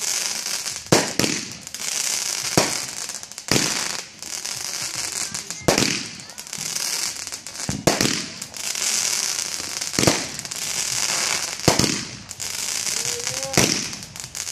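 Multi-shot box of consumer aerial fireworks firing in succession. A sharp bang comes every second or two as shots launch and burst, with a steady high hiss between them.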